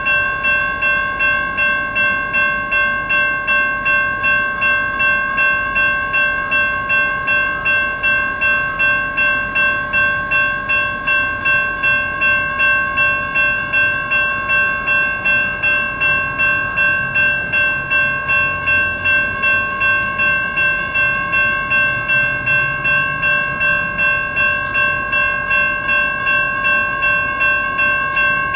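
Electronic railroad crossing bells ringing steadily, a rapid even ding at about two strikes a second, while the crossing is active and its warning lights flash.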